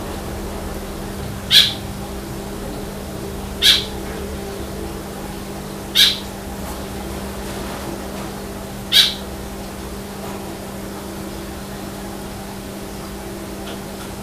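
An animal's short, high chirp, repeated four times about two to three seconds apart, over a steady low hum.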